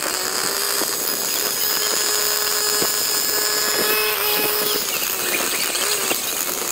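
Primal RC Raminator 1/5-scale monster truck's two-stroke gas engine running steadily.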